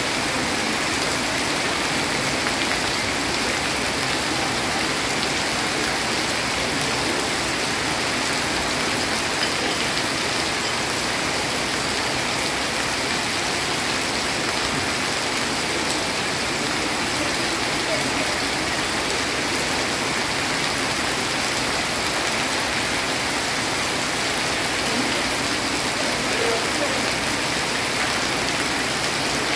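Heavy rain falling steadily on wet stone paving, with runoff dripping off a roof edge and splashing onto it: an even, unbroken hiss of rain.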